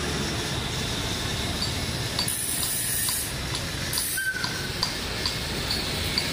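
A steady low mechanical rumble like an engine running, with two short bursts of hissing, one a little over two seconds in and another about four seconds in.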